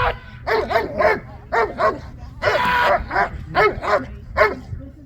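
Dog barking repeatedly on command, a protection-sport alert: short sharp barks at about three a second, with one longer bark about halfway through.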